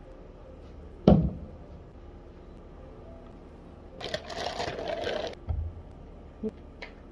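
Handling noises: a sharp knock about a second in, then about a second and a half of rustling rattle near the middle, ending in a dull thump, with a few small ticks after.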